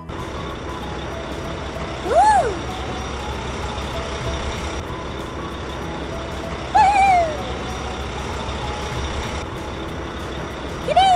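Cartoon vehicle sound effects: a steady low engine rumble, with three short hooting tones that rise and then fall, about four to five seconds apart.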